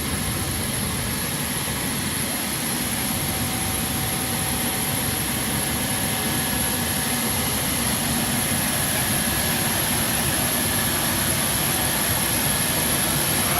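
Jet aircraft engine running steadily: an even wash of noise with a thin, high-pitched whine held throughout.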